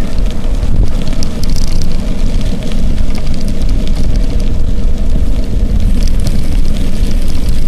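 Wind buffeting the microphone of a camera carried on a moving bicycle: a loud, steady low rumble, with scattered light ticks and rattles.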